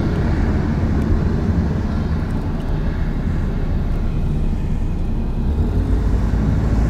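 Steady road and engine rumble of a moving car heard from inside the cabin.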